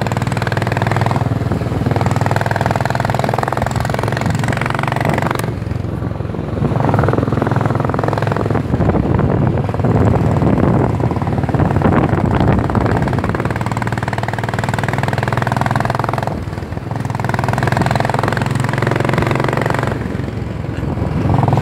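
Royal Enfield Bullet 350's single-cylinder engine running steadily under way, its note dipping briefly about three times.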